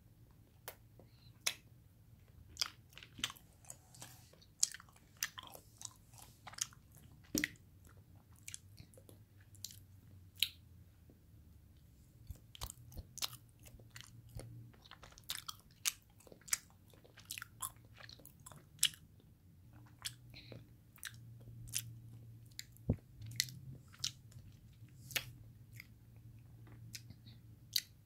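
Chewing of soft Royce nama chocolate: irregular wet mouth clicks and smacks, at times several a second, over a faint low hum.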